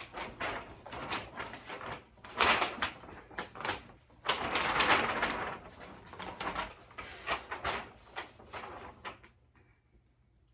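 Hands handling a Halloween animatronic's plastic frame and costume fabric: a busy run of clicks, knocks and rustling that stops about nine seconds in.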